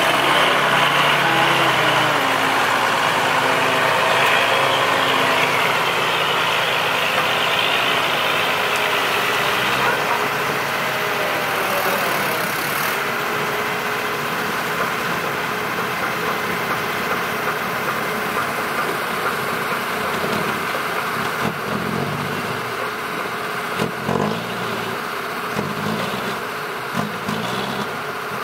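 Diesel engines of small six-wheel dump trucks running, loudest at the start as one passes close, then a truck straining with its rear wheels spinning in mud. There are a few sharp knocks near the end.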